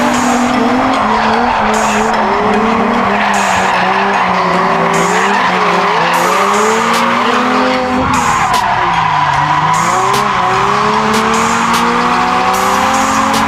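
Nissan Z drift car sliding with its engine revving up and down and its tyres squealing; the revs drop sharply about eight seconds in, then climb back.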